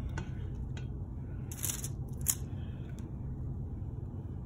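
Spatula scraping soft herb butter out of a stainless steel mixing bowl: a few short scrapes, the loudest about one and a half to two and a half seconds in, over a steady low hum.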